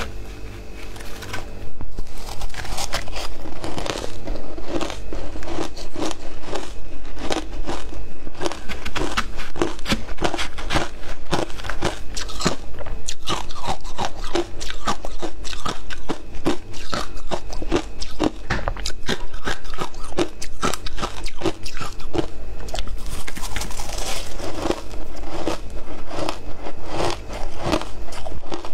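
Crushed ice dusted with matcha powder being bitten and chewed close to a microphone: a dense, continuous run of loud, sharp crunches, starting about two seconds in.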